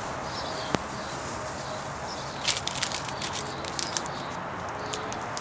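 Painter's tape being pulled slowly off a scratch-built model airplane's painted fuselage: one sharp click about a second in, then a run of short crackles between about two and four seconds in, and one more near the end.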